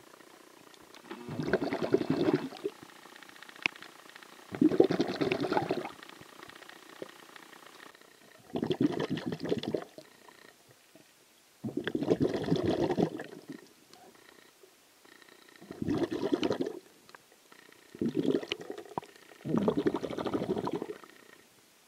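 Bubbling, gurgling water heard underwater, in bursts of about a second that come every three to four seconds, at the even pace of a swimmer's breathing.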